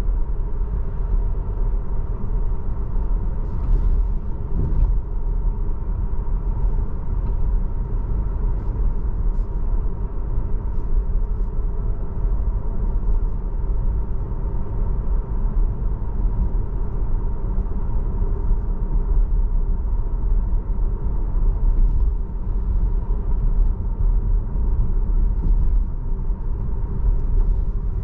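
Tesla electric car driving, a steady low rumble of road and tyre noise with a faint steady hum over it.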